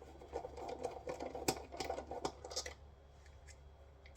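Screwdriver with a hex bit working Allen bolts loose on a solar inverter: a rapid run of small metal clicks and scrapes that stops about two and a half seconds in.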